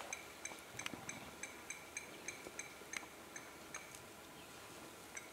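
Faint, short high-pitched chirps repeating irregularly, about two or three a second, over a faint steady background hiss.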